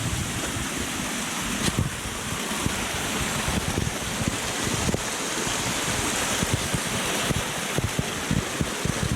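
Wind buffeting the microphone in irregular low gusts over a steady rushing hiss, with a couple of sharp knocks.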